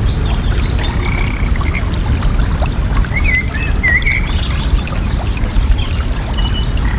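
Water running and splashing steadily, with birds chirping in short phrases over it, a few times.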